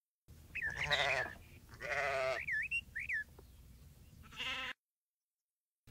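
Sheep bleating three times, with short high rising-and-falling whistles between the first two bleats and after the second. The sound cuts off suddenly near the end.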